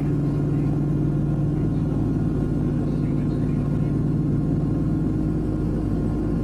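Lockheed L-1049 Super Constellation in flight, heard from inside the cabin: the steady drone of its Wright R-3350 eighteen-cylinder radial engines and propellers. It is a low, even hum with no change in pitch or level.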